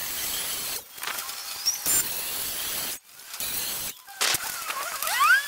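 Cordless circular saw with a tungsten carbide tipped blade cutting through 2 mm aluminium sheet: a steady, high, hissing screech that breaks off sharply a few times, with a rising whine near the end.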